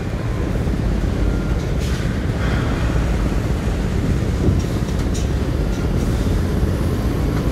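A coach bus's engine running as the bus rolls slowly onto a ferry's steel loading ramp: a steady low rumble with a few faint knocks.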